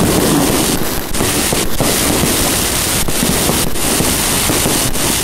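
New Year fireworks display going off: a dense, unbroken run of overlapping bangs and crackles from many shells bursting at once.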